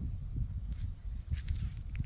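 Footsteps on a dry dirt track with leaf litter, a few soft crunches about one and a half seconds in and near the end, over a constant low rumble on the microphone.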